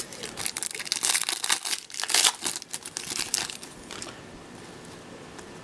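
Crinkling of an Upper Deck hockey card pack's foil wrapper along with cards being handled: irregular crackling for about four seconds, loudest around the middle, then it dies down.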